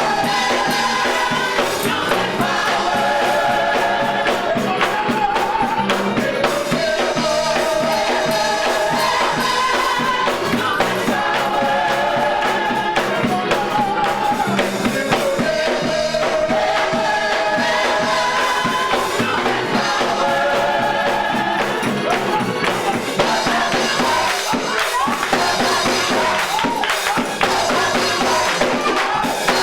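Gospel choir singing with music accompaniment, a tambourine shaking along.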